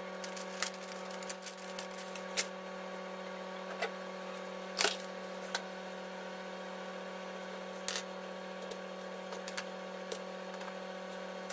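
Scattered light clicks and taps from craft items being handled on a tabletop, the loudest about five seconds in, over a steady low electrical hum with a few fixed tones.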